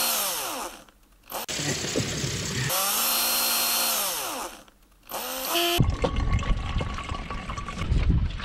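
Power drill boring into a green coconut: its motor runs steadily and spins down in the first second, runs again for about three seconds, and spins down again. From about six seconds in, coconut water pours out of the drilled holes into a plastic jug.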